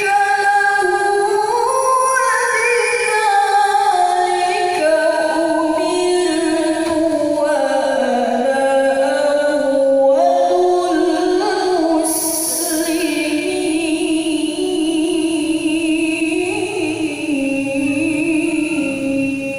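Solo female voice reciting the Quran in the melodic tilawah style, holding long, ornamented notes that slide up and down in pitch, with a brief hissed consonant about twelve seconds in.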